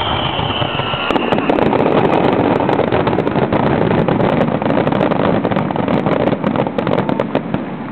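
Fireworks crackling overhead: a dense rush of sharp crackle that starts about a second in and eases off near the end.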